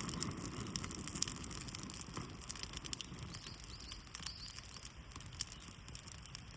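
Birch bark burning with fine, irregular crackling over a soft rush of flame that slowly dies down.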